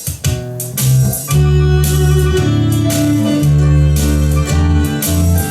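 A small band starting an instrumental: mandolin picking the melody with plucked string accompaniment over long held low notes.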